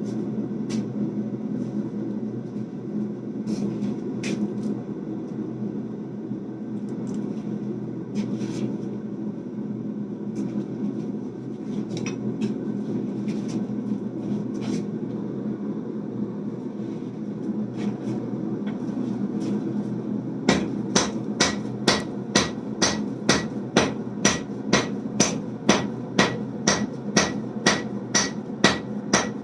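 Forge running with a steady rushing noise and a few scattered taps; about two-thirds of the way in, a hand hammer starts striking the hot 1095/15N20 damascus billet on the anvil in a steady rhythm of about two blows a second, drawing the bar out.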